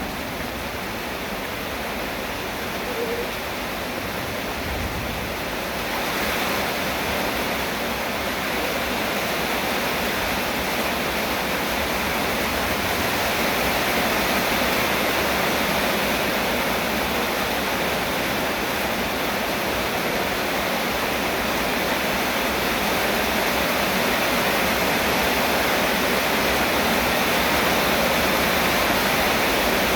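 Rain falling steadily, an even hiss that grows louder about six seconds in.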